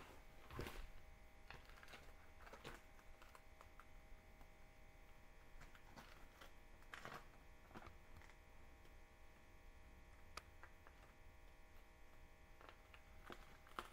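Near silence: faint room tone with a low steady hum and a few soft, scattered clicks.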